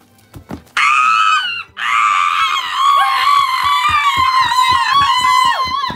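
A high-pitched voice screaming: a short shriek, then one long wavering shriek lasting about four seconds, with quick low thumps beneath it.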